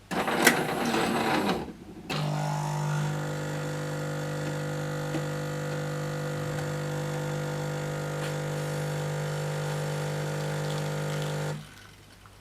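Jura Z5 automatic coffee machine at work: a brief mechanical whirr with a sharp click, then its pump hums steadily for about nine and a half seconds while brewing and cuts off suddenly.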